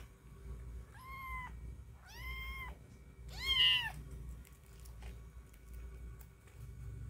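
A cat meowing three times: short, high mews about half a second long and roughly a second apart, the third one the loudest.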